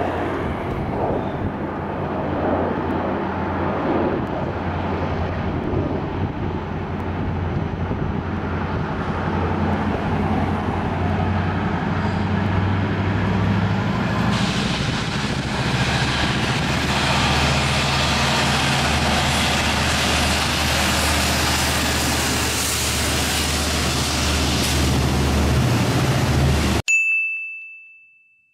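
Norfolk Southern diesel freight locomotives approaching and passing, their engines running with a low steady drone and wheel and rail noise rising about halfway through as they draw close. The sound cuts off suddenly near the end, followed by a short high ding.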